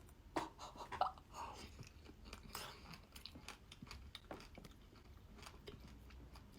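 Close-up chewing and biting of rolled-up lavashak, a sour Persian fruit leather, with many small wet mouth clicks.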